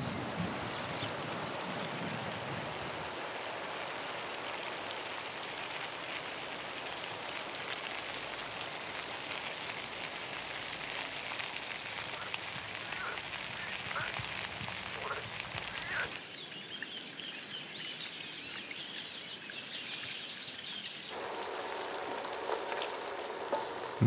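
Steady rain falling on a river, a dense patter of drops on the water. About two-thirds of the way through, the sound cuts to a quieter, duller hiss.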